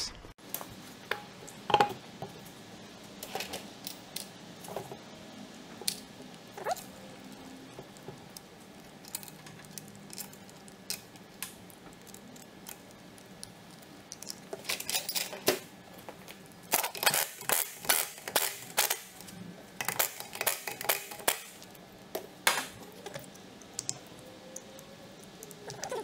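Small metal parts clinking and rattling in the hand, such as wheel bolts being handled while a car's rear wheel is refitted to the hub. First come scattered single clinks, then quick runs of clicks and rattles in the second half.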